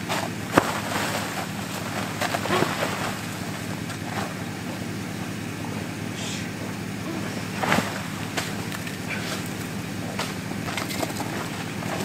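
Canvas tent being taken down: rustling of heavy fabric and scattered knocks, the sharpest about half a second in, over a steady low hum.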